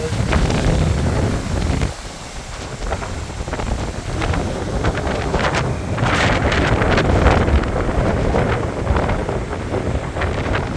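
Hurricane Idalia's high winds buffeting the microphone, a heavy rumbling wind noise that eases briefly about two seconds in and then picks up again in a stronger gust about six seconds in.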